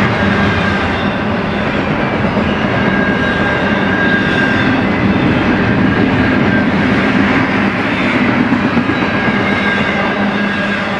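Double-stack intermodal well cars of a freight train rolling past, with the steady rumble of steel wheels on rail. A faint, thin high tone comes and goes over the rumble.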